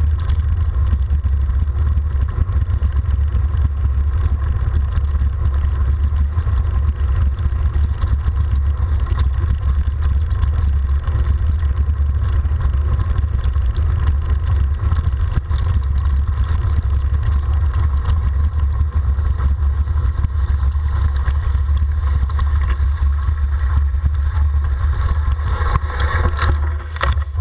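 Steady low rumble of wind buffeting a bike-mounted action camera's microphone during a fast downhill ride, with tyre noise from the gravel road underneath. It eases off in the last second as the bike slows to a stop.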